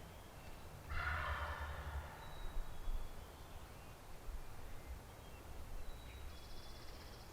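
A wild turkey tom gobbles once, about a second in: a single rattling gobble lasting about a second, the loudest sound here.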